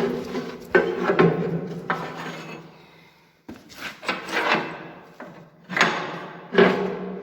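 Heavy steel parts knocking and clanking together, about eight irregular knocks, each ringing on briefly as it fades.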